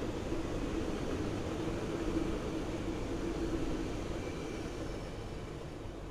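Stainless-steel passenger cars of a train passing close by at speed, their wheels on the rails making a steady rumble that eases a little near the end.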